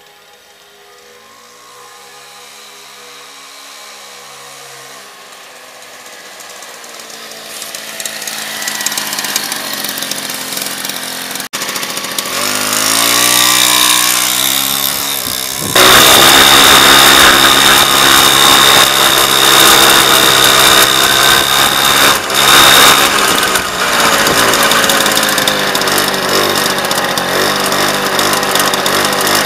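Piaggio Vespa Bravo moped's 50 cc two-stroke engine running with a buzzing note, getting louder as it comes closer. About halfway through it becomes suddenly loud and close, its pitch rising and falling with the throttle.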